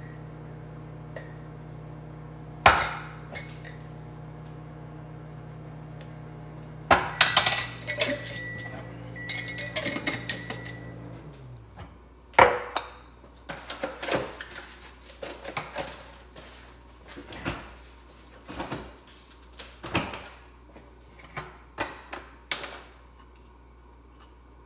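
Kitchen clatter as cookie ingredients are measured out: measuring cups, spoons and jars knocking and clinking against a stainless steel mixing bowl and a stone counter. Under the first half a steady low hum runs, then winds down and stops about halfway through.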